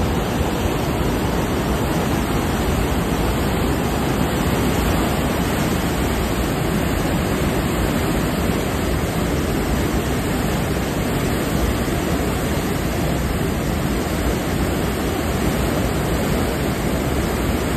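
Churning white-water wake of a navy ship running at high speed, a loud, steady rush of water with no let-up.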